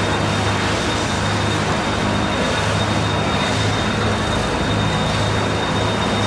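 Steady low machine hum with a thin, high steady whine over a wash of background noise.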